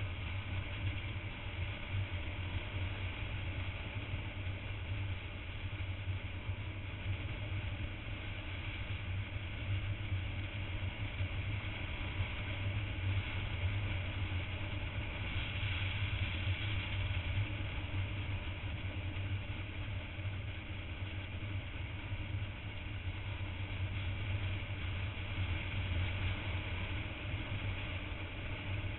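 Motorcycle engine running steadily while riding at road speed, mixed with rushing wind on the bike-mounted camera.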